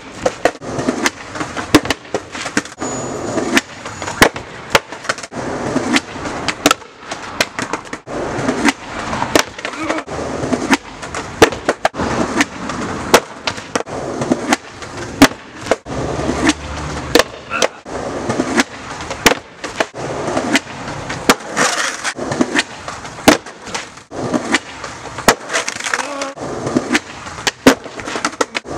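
Skateboard rolling on concrete, with many sharp clacks and knocks of the board against the ground.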